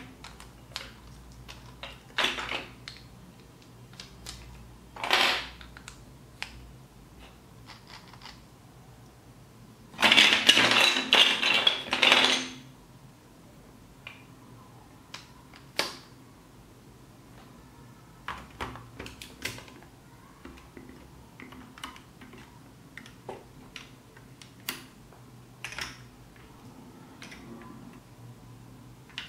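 Hard plastic building blocks, gears and axles clicking and knocking as they are handled and pressed together, with a loud clattering rattle of plastic parts lasting a couple of seconds about ten seconds in.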